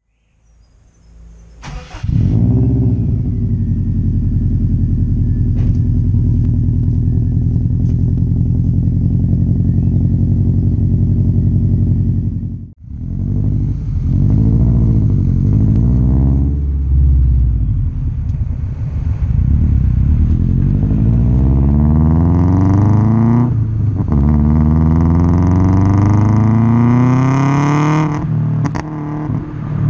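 2004 Subaru Impreza WRX's turbocharged flat-four, heard at the tailpipe, running steadily at first, then revved up and down again and again after a brief break about halfway. Short sharp pops and crackles come on the lift-off near the end: the overrun 'popcorn' of a remapped engine tune.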